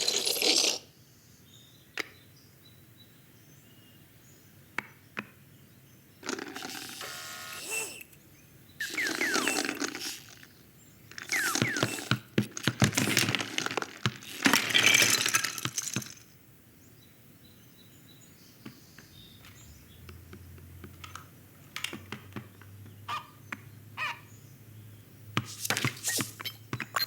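Cartoon foley sound effects with no dialogue or music: several bursts of scraping and rustling, some with short squeaky rising streaks, separated by scattered small clicks and taps.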